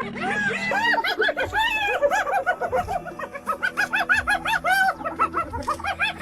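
Hyenas giggling: rapid, overlapping runs of short, high calls that rise and fall in pitch, several a second.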